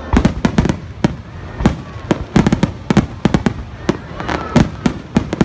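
Aerial fireworks bursting: rapid, irregular volleys of sharp bangs, several a second, in tight clusters.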